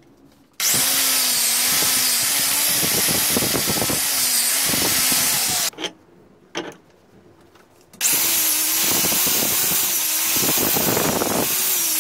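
Angle grinder with a wire wheel scouring rust off a steel hammer head held in a vise. It runs in two spells of about five seconds each, with the motor pitch wavering as it bears down. The spells start and stop abruptly, and a couple of short knocks fall in the gap between them.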